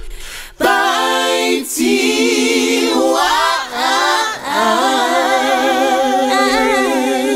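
A cappella closing jingle: several voices singing in close harmony on long held notes with vibrato.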